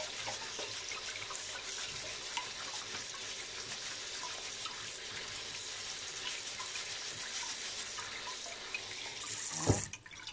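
Kitchen tap water running steadily into a colander of glutinous rice as the rice is rinsed. Near the end the running water stops with a single sharp knock.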